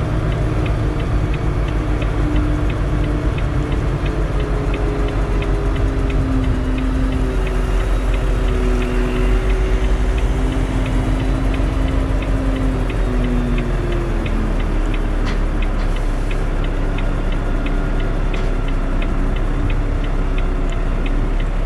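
A truck's diesel engine heard from inside the cab: a steady low drone as the truck rolls slowly, its note rising and falling gently. A faint regular ticking runs along with it.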